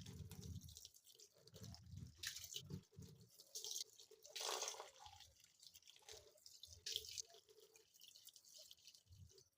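Water slowly filling a washing machine tub, faint irregular dripping and splashing.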